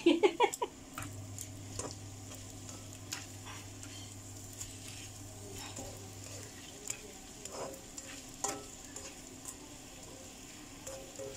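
Flat noodles with egg and beef being stir-fried in a nonstick wok, a utensil tossing and scraping through them over a faint sizzle. A quick run of loud clacks against the pan at the start, then scattered lighter clicks and scrapes.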